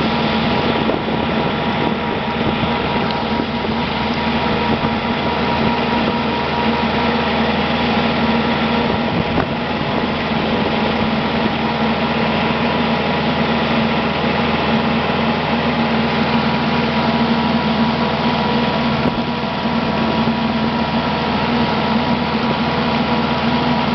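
A motor vehicle's engine running steadily, with an even hum that holds without change.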